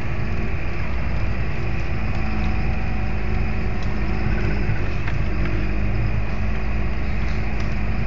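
John Deere 7920 tractor's six-cylinder diesel running steadily under load while pulling a mounted plough through the soil.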